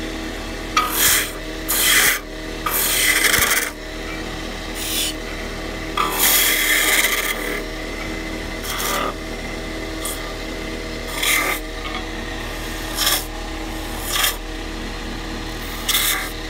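Wood lathe running with a steady hum while a hand-held skew chisel cuts the spinning wooden blank: about eleven short scraping cuts a second or two apart, two of them over a second long.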